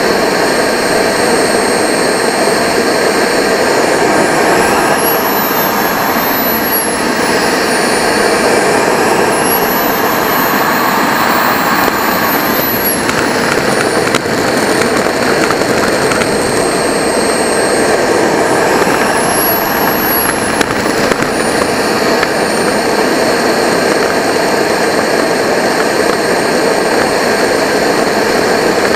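A radio-controlled model jet's turbine engine runs at idle with a high whine. It is throttled up three times, the whine rising and falling in pitch each time, then it settles back to a steady idle.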